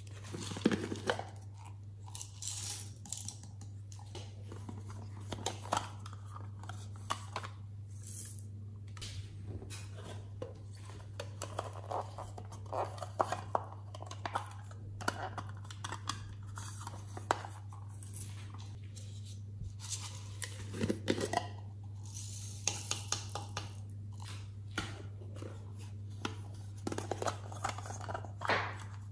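Small plastic toy compacts and a block of modelling clay handled close to the microphone: scattered clicks, scrapes and crackles, over a steady low hum.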